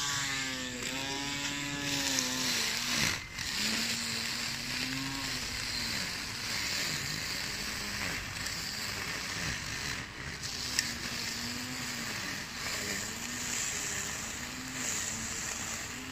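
Small handheld grass trimmer's motor whirring as its head spins through grass. Its pitch sags and recovers every second or two as the cutter bites into the grass.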